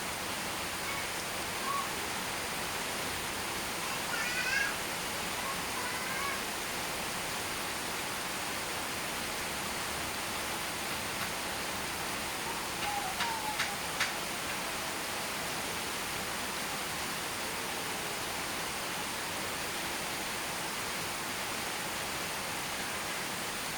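Steady rain hiss. A few short, high calls rise out of it about four to six seconds in and again around thirteen seconds, and there are a couple of sharp ticks just before fourteen seconds.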